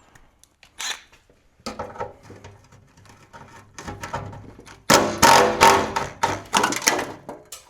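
Socket tool clicking and rattling as the 10 mm nuts holding the exhaust heat shield under the car are undone. It starts with scattered clicks and knocks and becomes a dense, loud run of rapid clicking with a steady hum about five seconds in.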